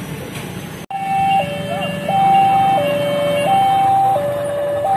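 Railway level-crossing warning alarm sounding as the crossing closes: a loud electronic two-note tone stepping high-low-high, each note held about 0.7 s. It starts abruptly about a second in, after a moment of road traffic noise.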